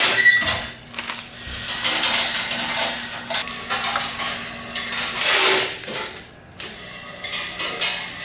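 Uneven clattering and rustling of work in a snack-factory production line, with a faint steady hum through the first five seconds.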